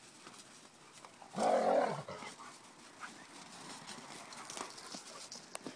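A dog growls once in play while wrestling, a rough growl about half a second long a little over a second in. Faint scuffles and ticks of paws in snow come and go around it.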